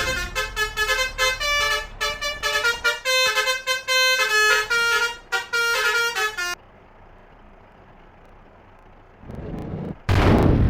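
A 'telolet' multi-trumpet bus horn playing a rapid melody of short, stepped notes, which cuts off abruptly about six and a half seconds in. A loud rushing noise burst comes near the end.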